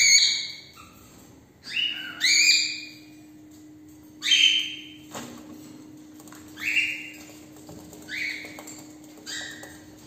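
Cockatiels giving short, loud calls, about six of them spaced a second or two apart.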